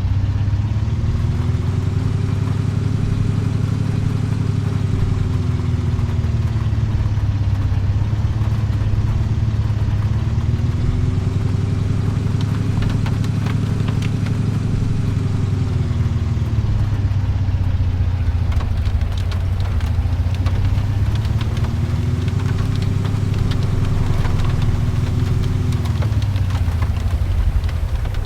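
Steady low rumble of a running vehicle. Over it, a tone rises, holds and falls back three times, and scattered light ticks come in over the second half.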